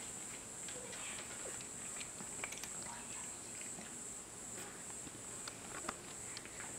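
Munchkin cat eating dry kibble: irregular small crunches and clicks as it picks up and chews the pieces, over a steady high-pitched hiss.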